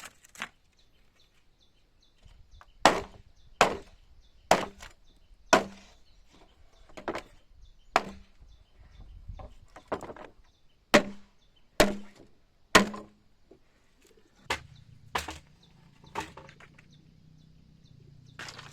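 A blade chopping into wood with sharp, evenly paced strikes, about one a second, after a short pause at the start.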